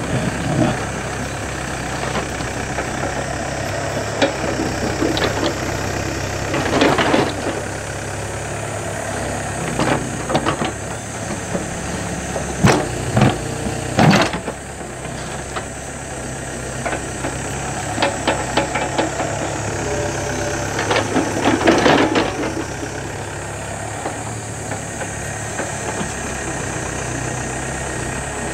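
Yanmar B7 backhoe's diesel engine running steadily as the machine digs, with repeated clanks and scrapes from the bucket working through soil and stones, including three sharp knocks close together a little before halfway through.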